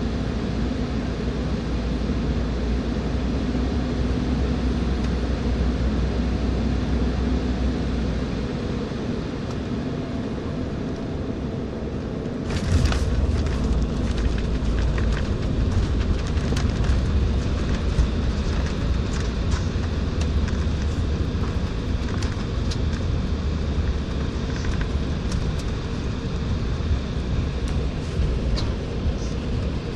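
Embraer 195 landing, heard inside the cabin beside its GE CF34-10E engines: the steady rumble of final approach eases off about nine seconds in, the wheels touch down with a sudden jolt about thirteen seconds in, and the roll-out follows with a heavier rumble and many rattles and knocks in the cabin.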